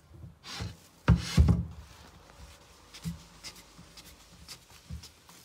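Handling noise from a handheld phone being moved about: rubbing, two heavy thumps just over a second in, then scattered light clicks and knocks against wood.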